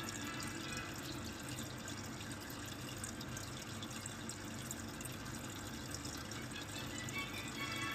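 Steady hiss of running water with a low hum underneath.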